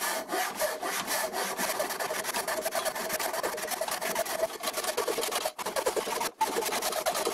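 A manual miter saw cutting by hand through a turned green-oak log: quick back-and-forth rasping strokes, with two brief breaks near the end.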